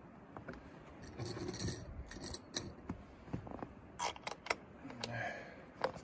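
Small metal screw-in hook being turned by hand into a wooden door post: light scraping and clicking of metal on wood, with a few sharper clicks about four seconds in.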